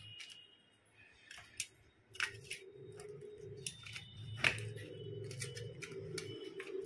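Sharp clicks and taps of hands handling a smartphone's plastic mid-frame and display assembly, with a low steady hum that starts about two seconds in.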